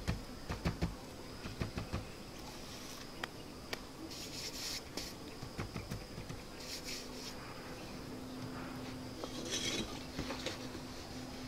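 Hollow clay bricks being laid in mortar on a wall top: scattered knocks and clinks as the bricks are set and tapped into place, densest in the first couple of seconds, with a few short scrapes later.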